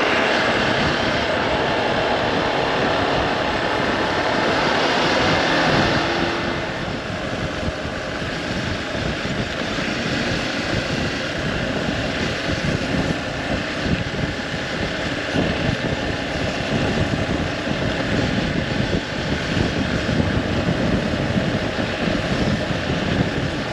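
Motorcycle on the move, its engine running under heavy wind rush on the microphone. The wind hiss eases a little about six seconds in.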